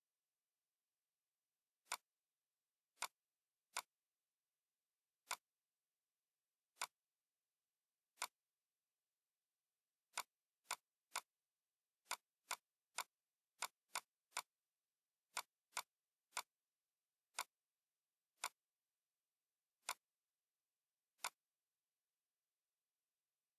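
Computer mouse clicking: about twenty single sharp clicks at an uneven pace, coming faster and closer together in the middle.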